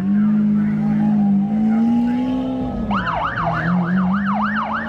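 A car engine running with a steady low drone, its pitch easing down a little past halfway; then, about three seconds in, a siren starts a fast yelp, sweeping up and down about three times a second.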